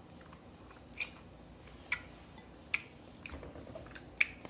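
Eating sounds from a seafood boil: four sharp, short clicks and smacks about a second apart, the last the loudest, with faint soft squishing between them.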